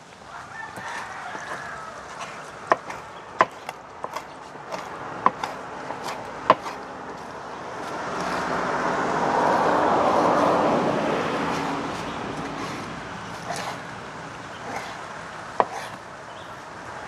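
Kitchen knife knocking on a cutting board in sharp, irregular strokes while mincing fish meat. A broad rush of noise swells and fades in the middle.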